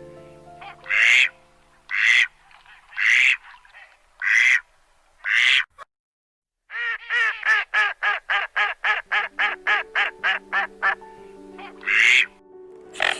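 A bird calling over and over: single loud calls about once a second, then after a short break a fast run of about five calls a second, then two more loud calls near the end.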